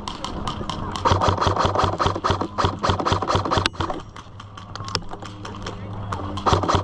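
Airsoft gun firing rapidly in bursts, a long burst starting about a second in and another near the end, with sparser shots between.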